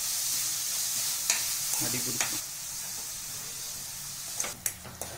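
Grated carrot sizzling in ghee and melting sugar in a nonstick kadai while a wooden spatula stirs and scrapes it, at the stage where the sugar is turning to syrup. The sizzle drops off about halfway through, and a few sharp knocks come near the end.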